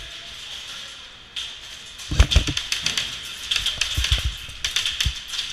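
Airsoft gunfire: clusters of sharp clicks and low thumps, starting about two seconds in and loudest then, over a steady hiss.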